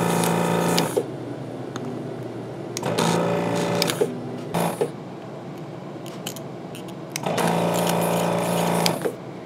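Hakko 470 desoldering station's vacuum pump running in three short bursts of steady humming, each about a second long, the first at the start, one about three seconds in and one near the end. Each burst is the pump sucking molten solder through the Hakko 802 desoldering gun's nozzle off a chip's pins.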